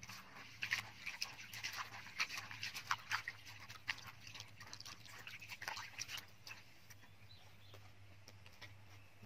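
Hands swishing and rubbing bean sprouts in a plastic basin of water, giving quick, irregular splashes and wet crackles that die away about six and a half seconds in.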